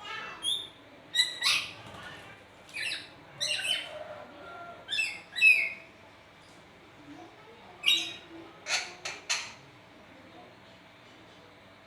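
Nuri parrot (lory) calling in a string of short, loud squawks and chirps, about a dozen calls in quick groups, with a pause of a couple of seconds in the middle.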